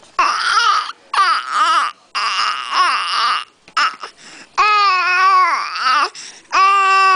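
Baby making a string of five high-pitched squealing, cry-like vocalizations, each wavering up and down in pitch, with short pauses between them.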